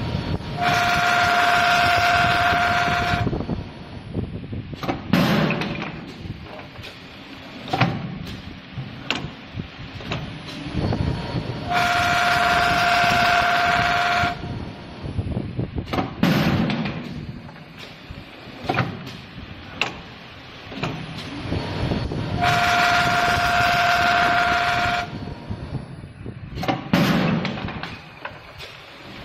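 Automatic wood handle sanding machine working in cycles: three times, about ten seconds apart, an abrasive wheel presses on the wooden handle for about two and a half seconds, a loud grinding hiss with a steady whine. Between the passes the machine runs more quietly, with single knocks and clunks of the fixture moving.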